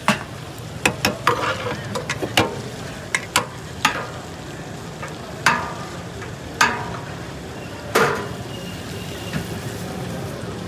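Metal ladle knocking and scraping against the rim and sides of a large metal cooking pot as curry is scooped out, about a dozen sharp clinks, bunched in the first few seconds and then three louder ones a second or more apart, some ringing briefly.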